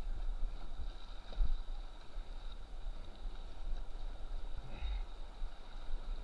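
Kayak paddling through whitewater rapids: river water rushing and splashing around the boat as the paddle blades dip in, with scattered low thumps on the microphone, the biggest about a second and a half in and again near five seconds.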